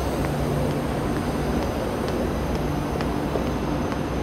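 Steady hum with a low drone from a KTX high-speed train standing at the platform, its onboard equipment running. Faint scattered clicks of footsteps on the paving.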